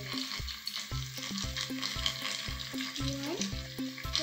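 Steady hissing of a running toy tornado machine, its small motor spinning the water into a vortex, with a low repeating tune of stepped tones and short sliding notes over it.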